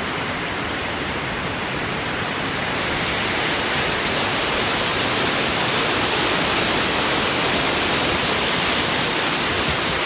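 Waterfall: a loud, steady rush of falling water, close by.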